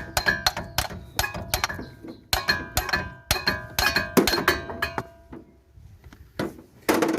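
Hammer blows on a Ford Fusion's outer CV joint to knock it off the half-shaft: sharp, ringing metallic clanks, about two to four a second, with a pause a little before the end and then a couple more.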